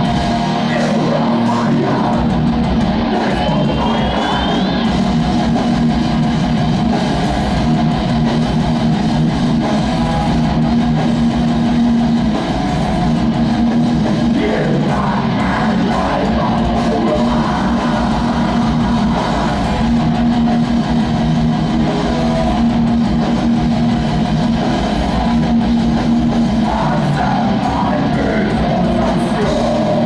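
Live hardcore/metal band playing: distorted electric guitars, bass and drums together, with a vocalist shouting over them in places.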